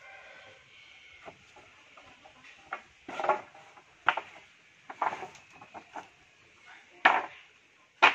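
Sawn waru (sea hibiscus) wood planks being tossed onto a stack, knocking and clattering against the other boards in a series of irregular wooden strikes.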